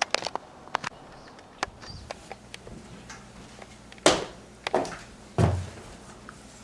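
A scatter of small clicks and taps, then three louder knocks or thuds about four to five and a half seconds in, the last one with a low thump.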